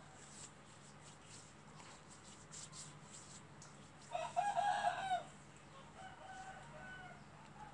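A rooster crows once, about four seconds in, a loud call of roughly a second, followed by a fainter, shorter call. Soft pats of hands on skin come before it.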